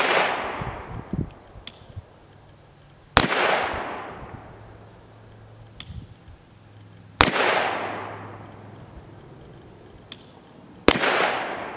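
Grand Power Stribog SP10A3 10mm pistol firing Fiocchi 180-grain FMJ rounds in slow aimed fire: three single shots about four seconds apart, each followed by a long rolling echo that fades.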